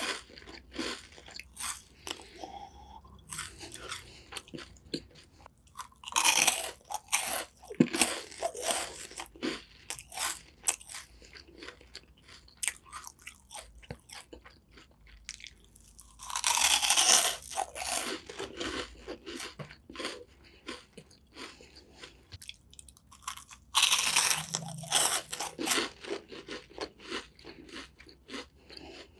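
Close-miked crunching and chewing of a crisp yellow puffed snack: loud bites about four times, with softer chewing crackles between them.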